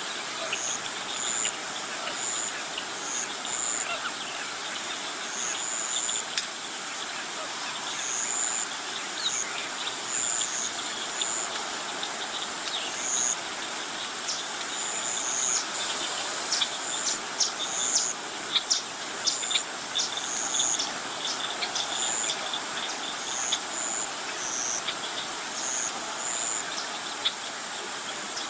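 Outdoor ambience of insects and birds: short high chirps repeating irregularly over a steady hiss, with a flurry of sharp ticking calls about halfway through.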